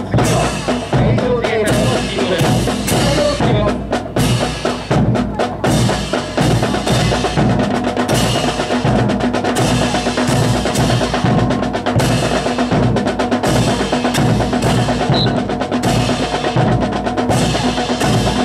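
Drum-led music with a steady bass-drum and snare beat over sustained held tones, accompanying a rifle drill. Sharp clacks of rifles being handled cut in at irregular moments.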